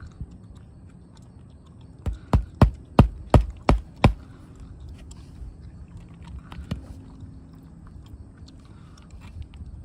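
Hammer driving roofing nails through asphalt shingles: a quick run of about seven strikes, about three a second, starting about two seconds in.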